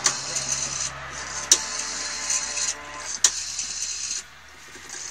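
Rotary telephone dial turned and released digit after digit: each return whirs and is marked by a sharp click, about every one and a half to two seconds.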